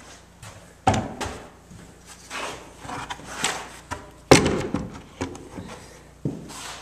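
A series of irregular knocks and clunks of wood and metal, the loudest about a second in and just past four seconds.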